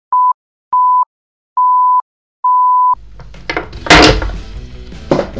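Countdown-timer beeps: four electronic beeps at the same pitch, each a little longer than the last. Then room noise returns, with a loud thump on the desk as the wooden phone stand is handled, and a lighter knock just after.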